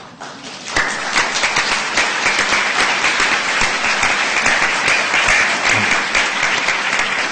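Audience applauding, many hands clapping at once; the applause swells in within the first second and then holds steady.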